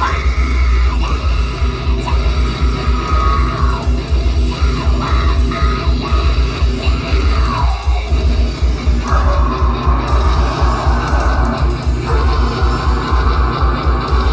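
Loud rock song with a heavy-metal edge, performed live: a fast, pounding bass drum, electric guitar and yelled vocals.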